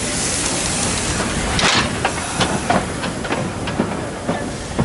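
Tkt48 steam tank locomotive moving slowly past at close range, steam hissing loudly, followed from under two seconds in by a string of short, irregular knocks.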